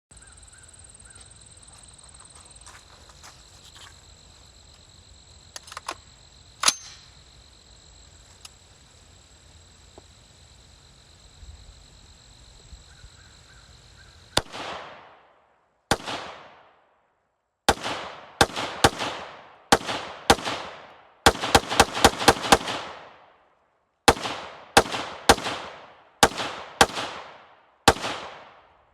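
Ruger MPR AR-15 rifle firing semi-automatic: about twenty shots in uneven groups starting about halfway through, including a fast string of about six shots, each with a short echoing tail. Before the shooting, only a faint steady high-pitched tone over low background.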